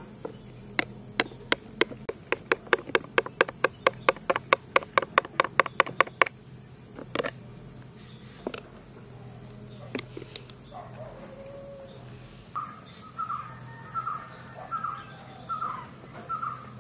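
A metal spoon clinking against a glass while stirring dalgona coffee: a quick run of sharp clinks that speeds up, then a few single clinks. Near the end a crow caws repeatedly, over a steady high insect drone.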